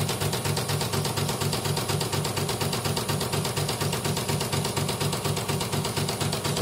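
CNY portable computerized embroidery machine stitching a design: a steady, rapid, even clatter of needle strokes over the motor's hum. It is a test run after repair of a machine that turned stiffly and then stopped entirely.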